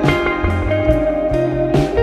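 Background music with guitar over a bass line and a steady beat.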